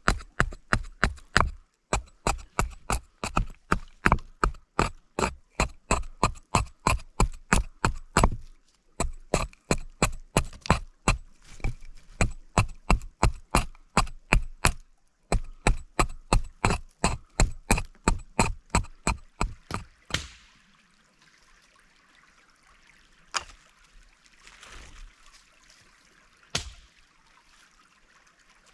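Knife chopping on a cutting board in quick, even strokes, about four a second, in several runs with short breaks. The chopping stops about twenty seconds in, followed by two single knocks.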